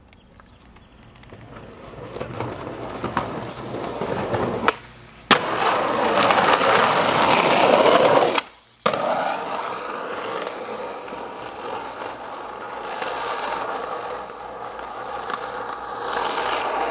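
Skateboard wheels rolling over asphalt, building up to a loud, steady roll. It breaks off abruptly twice, with a sharp click about five seconds in, then rolls on more quietly.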